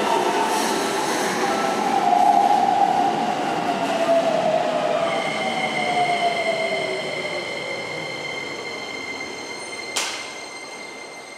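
Keikyu 2100 series electric train braking into a platform: a whine falls slowly in pitch as it slows. Steady high squealing tones come in about halfway as it creeps toward the stop, and there is a short sharp noise about ten seconds in.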